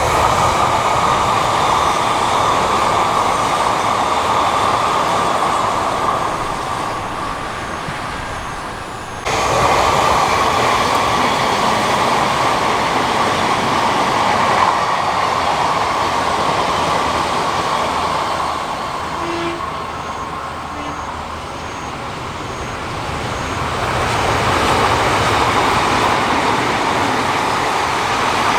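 Electric trains running past on the Odakyu Odawara Line: a steady rail running noise that swells and fades, breaking off and jumping back up abruptly about nine seconds in.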